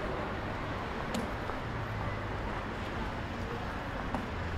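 City street ambience: a steady hum of road traffic, with a couple of faint clicks.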